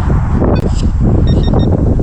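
Loud, uneven low rumble of noise on the microphone, like wind buffeting or handling noise, with no clear speech.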